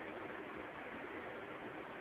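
Steady faint hiss of room tone, with no distinct sound standing out.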